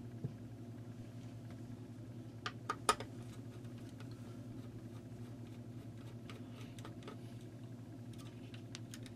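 Light clicks and taps of hands handling a circuit board and its wiring, with a quick cluster of three about two and a half to three seconds in and a few fainter ones later, over a steady low hum.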